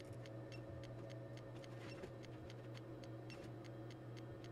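High-voltage transient generator firing pulses in quick succession, a faint small click with each discharge at about four a second, over a steady low equipment hum.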